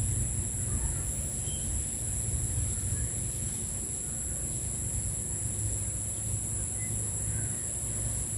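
Insects trilling in a steady high-pitched drone that does not change, over a low steady rumble.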